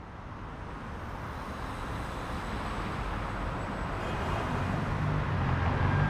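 City street traffic, fading in and growing steadily louder, with a car's low engine rumble building near the end.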